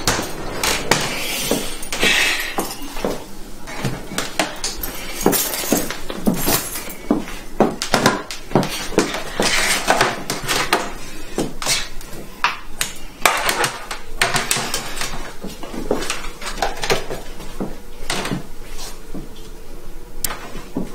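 Small hard household objects clattering and clinking as they are handled and knocked together on a nightstand, a quick irregular run of sharp knocks throughout.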